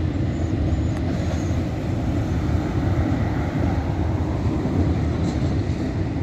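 CSX intermodal freight train's cars, trailers on flatcars and containers in well cars, rolling past with a steady low rumble.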